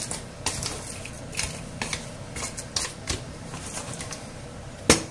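Wooden spatula stirring frozen mixed seafood in a non-stick frying pan: irregular clicks and scrapes as the hard frozen pieces knock about, with one louder knock near the end.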